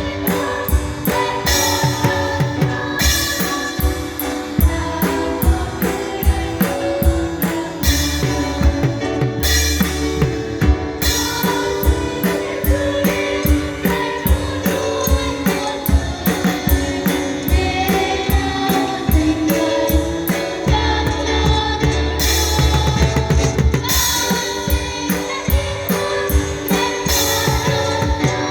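Band music with a drum kit keeping a steady beat under sustained instruments.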